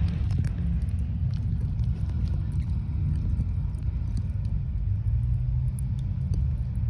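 Coal in a mine face crackling and ticking: many small, irregular clicks like hot oil frying, given off by the coal without it visibly moving, which the miner thinks may come from vibration causing friction in the coal. A steady low rumble runs underneath and is louder than the clicks.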